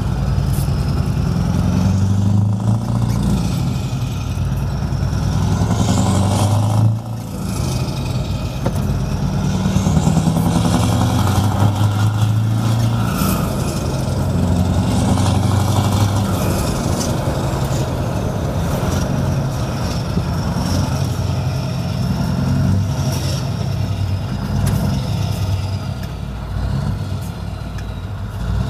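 Scania 164L 580 V8 truck engine with an open exhaust pipe, heard from inside the cab while driving. Its deep note climbs and falls with each pull, with a brief drop in sound about seven seconds in.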